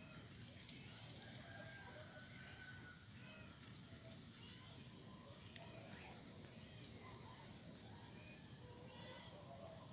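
Near silence: faint outdoor ambience with distant chickens clucking and scattered bird calls, and a faint high chirp repeating about twice a second.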